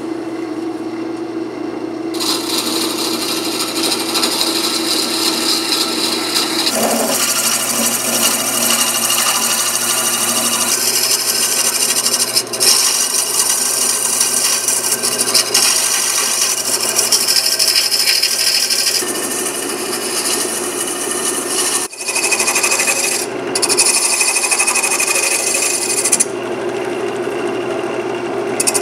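Wood lathe spinning a wooden duck call barrel while a hand-held turning tool cuts into it: a continuous scraping, rasping cut over the lathe motor's steady hum, with a few brief breaks as the tool comes off the wood.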